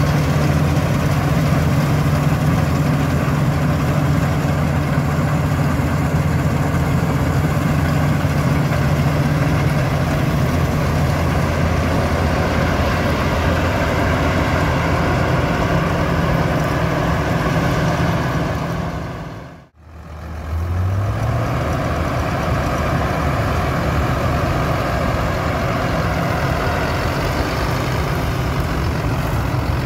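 Claas Dominator 98 SL combine harvester running steadily while harvesting wheat, its heavy diesel engine giving a constant low hum. About two-thirds in, the sound drops out for a moment. When it returns, heavy diesel engines are running again, with one engine briefly rising in pitch as it revs.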